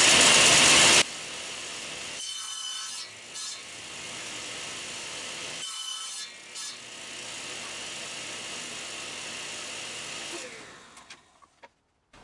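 Table saw with its blade tilted, running while a board held upright in a sled is pushed through to cut an angled dovetail cheek. It is loudest in the first second, then runs steady, and near the end it is switched off and winds down.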